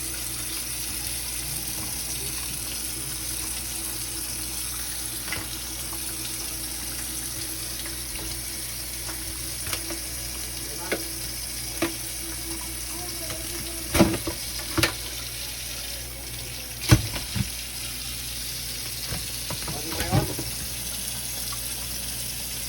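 Steady hiss of water running from a kitchen tap, with a few sharp knocks and clatters of lobster shell being handled, the loudest about two-thirds of the way through.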